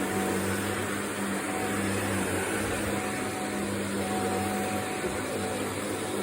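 Vacuum cleaner running steadily: an even motor hum over the rush of air through the suction.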